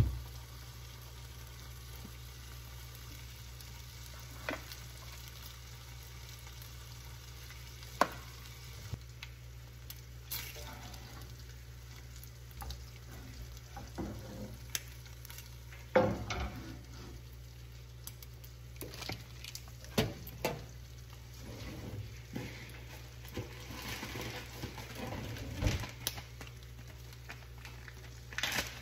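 Turkey bacon sizzling in a nonstick skillet over a steady low hum, broken by scattered sharp taps and clatters of a utensil and shaker against the pan.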